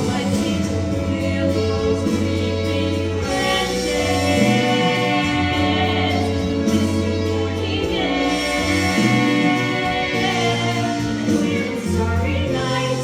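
Stage musical's cast singing together in chorus over instrumental accompaniment, with long held notes above a steady, slowly changing bass line.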